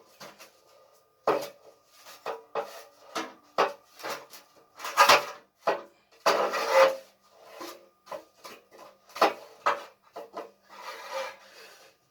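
Gas stove parts being worked by hand: a run of irregular scrapes and knocks, with longer rasping scrapes about five and seven seconds in and again near the end.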